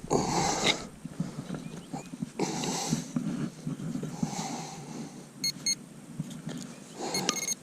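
Digging out a large buried object: several breathy huffs and scrapes, each about half a second long. In the second half come two quick runs of short electronic beeps from a metal detector.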